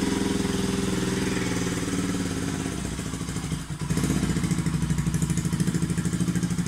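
Bajaj Pulsar RS200's single-cylinder engine running and being revved on the throttle. The note dips briefly a little past halfway, then holds steady and a little louder.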